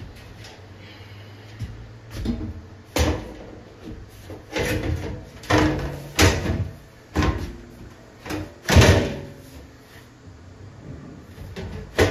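Laminate countertop being lifted and tipped up on its back edge over base cabinets, with about ten uneven knocks and scrapes of the board against the cabinet frames. The loudest comes about nine seconds in.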